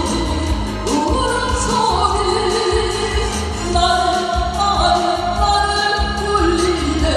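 A woman singing a Korean trot song into a microphone over an amplified backing track, holding long notes over a steady bass beat.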